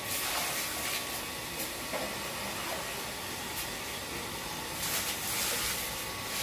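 Steady hissing noise with a faint constant tone, rising briefly into louder, higher hiss about half a second in and again near the end.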